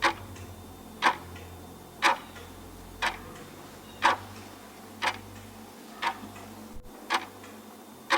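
A clock ticking steadily, about one sharp tick a second.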